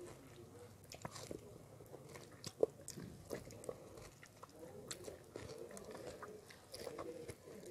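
Close-up mouth sounds of someone eating ripe mango: wet biting, sucking and chewing with many small smacks and clicks, one sharper click about two and a half seconds in.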